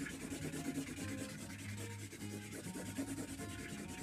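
A felt-tip marker scribbling back and forth across paper, a steady rubbing scratch as a page is coloured in strips.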